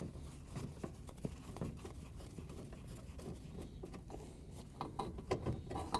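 Faint, irregular clicks and scratches of a 5/16-inch nut driver turning out the screws that hold a dishwasher water inlet valve to its metal frame, a little louder about five seconds in.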